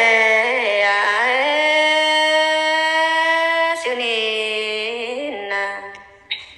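A single voice singing an unaccompanied Iu Mien folk song, one phrase of a call-and-response harvest duet. A wavering start rises into one long held note, broken off about four seconds in. A shorter lower phrase follows and trails off near the end.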